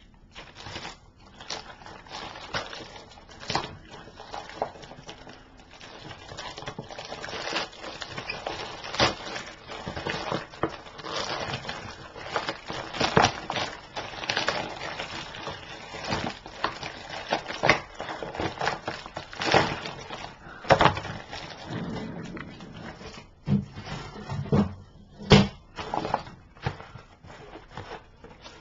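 Plastic mailer bag being torn open and its contents unwrapped by hand: irregular crinkling and rustling, with sharper crackles now and then.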